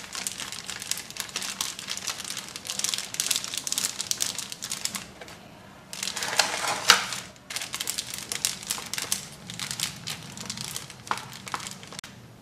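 Plastic sheets crinkling and rustling as a rolling pin rolls dough flat between them and a hand smooths the plastic, with a louder stretch about halfway through.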